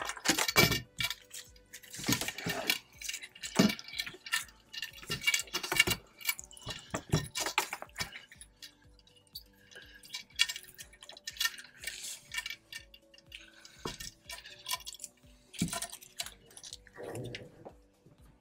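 Scattered metallic clinks and knocks of stainless-steel push-button sunshade poles being released, pulled from their holders and handled, with faint background music underneath.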